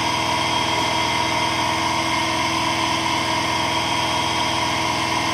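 Electric motor running steadily, spinning a wooden disc set with magnets past a copper tube coil: an even, continuous hum made of many steady tones. The motor is under load, drawing around 700 watts.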